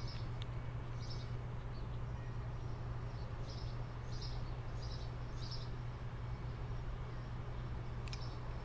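Small birds chirping, a run of short high chirps through the middle, over a steady low hum, with a couple of sharp clicks near the start and near the end.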